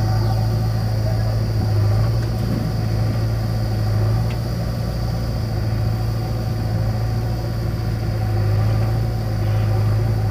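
Diesel engines of a parked farm tractor and backhoe loader idling: a steady, even engine hum with a strong low drone.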